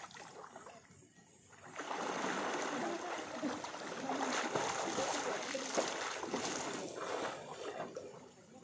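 Splashing water from a person swimming in a pool, starting about two seconds in, going on steadily with many small splashes, and easing off near the end.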